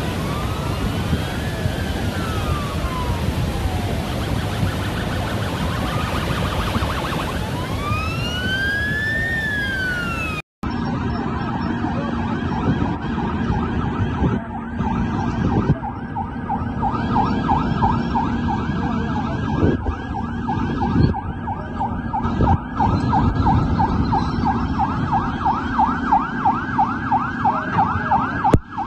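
Emergency vehicle siren over the steady rush of floodwater: first a slow wail rising and falling, then, after a sudden cut about ten seconds in, a fast repeating yelp.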